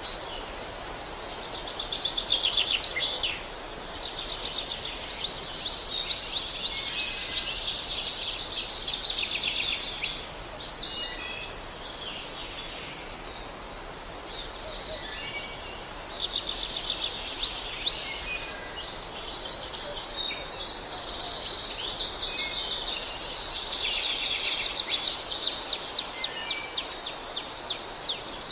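A chorus of small birds chirping and twittering in rapid trills, dipping briefly about halfway through.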